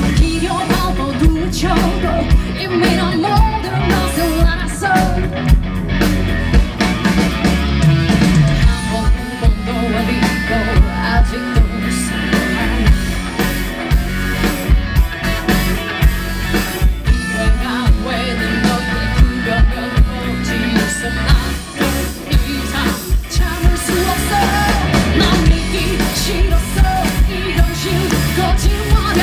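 Live rock band playing through a festival PA: a woman singing lead over a steady drum beat and band accompaniment.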